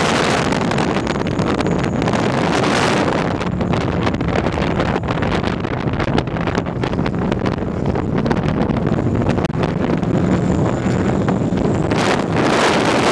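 Wind buffeting the microphone over a vehicle's steady low hum, with crackling through the middle stretch.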